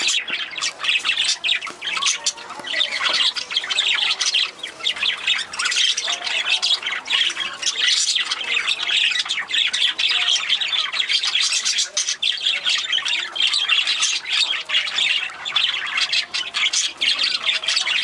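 Budgerigars chattering and squawking continuously in a dense, busy stream of short, harsh calls.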